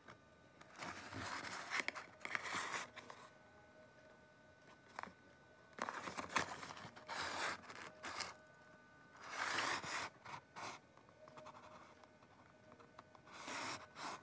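Cardboard toy box being handled, turned over and slid against a table, making about four bursts of scraping and rustling.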